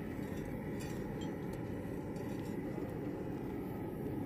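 Steady low rumble of background noise, with a few faint light ticks scattered through it.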